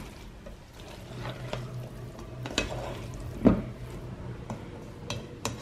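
Diced boiled vegetables and chopped egg being stirred with a spoon in a stainless steel bowl: a soft, moist scraping and squishing, with a few sharp clicks of the spoon against the bowl.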